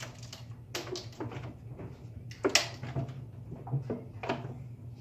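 New Remo drumhead on a 12-inch tom crackling and creaking in irregular snaps as it is pressed down hard with the palms, the strongest about halfway through. It is the glue holding the head's film in its hoop giving way, the normal sound of stretching and breaking in a new head.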